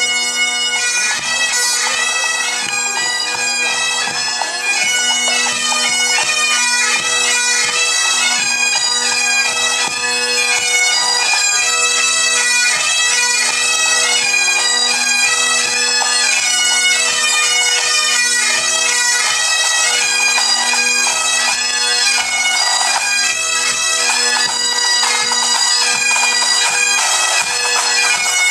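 A pipe band of Great Highland bagpipes playing a tune over their steady drones, with snare and bass drums beating time. The band strikes up loudly right at the start.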